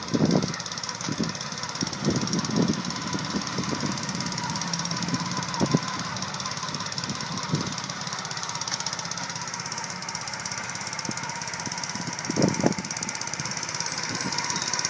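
Ryan Lawnaire V core aerator running steadily, its engine and tine assembly making a constant rapid knocking drone, with a few louder thumps: several in the first few seconds, two more in the middle and a pair near the end.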